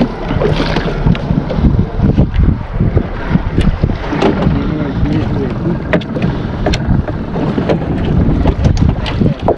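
Wind buffeting the microphone over water slapping against a small boat's hull at sea, with scattered clicks and knocks.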